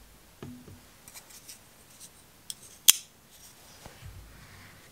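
Spyderco folding pocket knife being picked up and opened, with a few light clicks of handling and one sharp metallic click about three seconds in as the blade snaps into its locked-open position.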